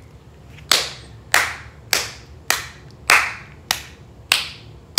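A person clapping hands in a slow, steady rhythm: eight single claps, roughly one every 0.6 seconds, starting just under a second in.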